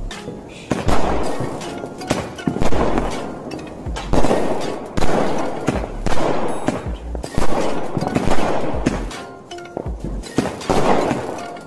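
Sunrise Blast 60 multicolour sky-shot cake firing on both fuses at once: a rapid string of shots launching and bursting, about one or two loud bangs a second with lighter cracks between them.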